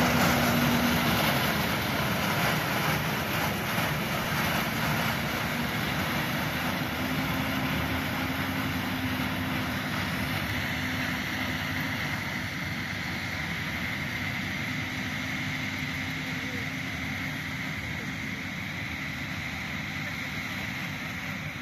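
Rice and wheat combine harvester running steadily as it cuts ripe grain, a continuous machine drone with a low steady tone in the first half. It slowly grows fainter as the harvester moves away.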